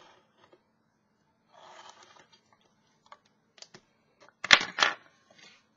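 Craft knife and pen working a self-adhesive cork sheet against a metal ruler: a short scratchy stroke, a few light clicks, then a loud crackling scrape of the blade through the cork a little after four seconds in.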